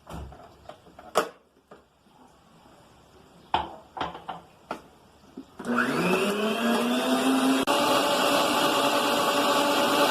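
A few knocks and taps, then about five and a half seconds in an electric blender motor starts. Its pitch rises as it spins up and it runs steadily, beating eggs for a savory cake batter.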